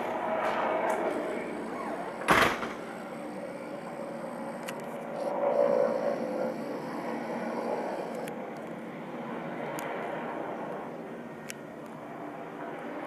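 Mil Mi-8-family helicopter heard from a distance: a steady rotor and turbine rumble that swells about five seconds in, with a sharp knock about two seconds in.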